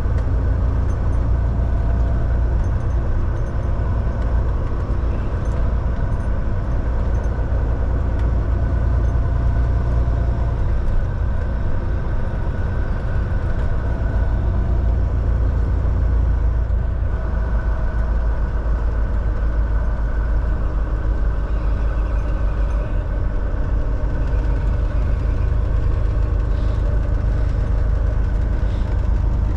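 Volvo semi truck's diesel engine running steadily as the truck drives, a deep drone with a steady hum above it.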